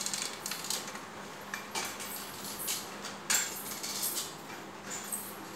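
Forearm crutches tapping and clicking on a tiled floor in an uneven walking rhythm, with light metallic clinks, about one sharp click every second.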